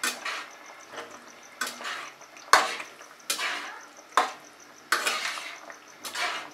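A spatula stirring and scraping through simmering gravy in a pan, about ten separate strokes, each sharp at the start and trailing off. The cornflour paste just added is being mixed in to thicken the gravy.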